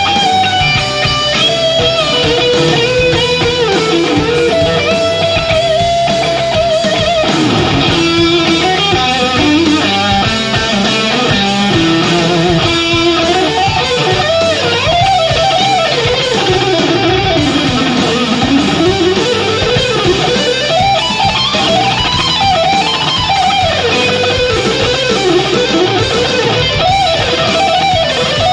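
Live instrumental rock music: an electric guitar lead winding through bends and swooping pitch dives over a dense, steady backing.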